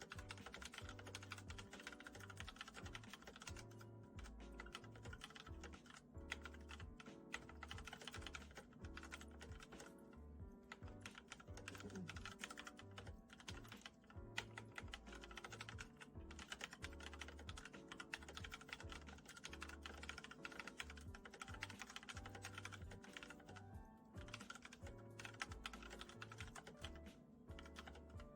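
Typing on an Akko 3087 mechanical keyboard with Akko 2nd gen pink switches: a quick, continuous run of quiet keystrokes, with background music underneath.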